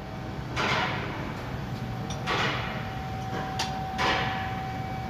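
Handling noises from work on the water pump: four short scraping or rustling sounds, one of them with a sharp click, with a faint steady tone in the second half.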